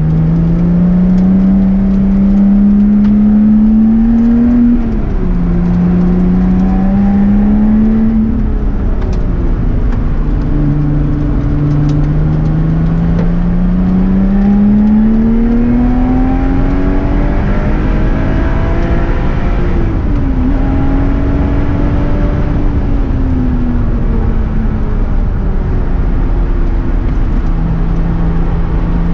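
The supercharged 3.5-litre V6 of a Lotus Exige S Club Racer heard from inside the cabin at track speed. The engine pulls hard through the gears, its note rising steadily and dropping sharply at each upshift, about five and eight seconds in, then climbing again. Later the revs fall away as it lifts off, settling to a lower steady note near the end, over constant road and tyre noise.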